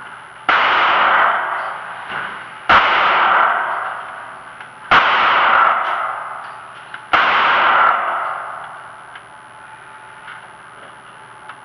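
Four gunshots about two seconds apart, each followed by a long echoing ring-out in an enclosed indoor range; after the fourth the firing stops.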